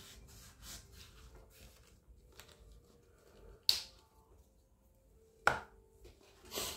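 Two sharp clicks about two seconds apart, then a short scrape as a plastic highlighter pen is stood upright on a glass tabletop.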